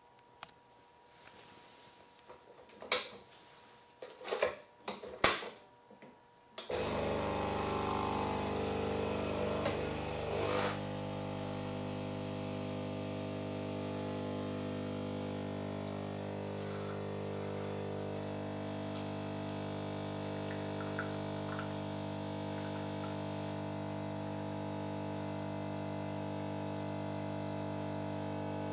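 A few clicks and knocks, then about seven seconds in a Lavazza Blue capsule espresso machine's pump starts with a steady hum. The hum is louder for the first few seconds and then settles, running on steadily while the espresso pours into the cup.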